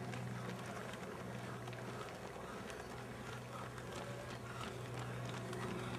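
Footsteps of several runners on an asphalt path, many quick irregular steps, over a steady low hum.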